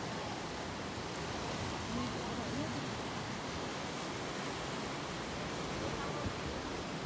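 Sea surf washing and breaking against rocky shoreline: a steady rush of waves with no pauses.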